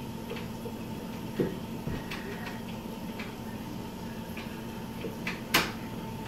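Steady electrical-sounding hum with scattered faint clicks and knocks, and one sharper knock about five and a half seconds in.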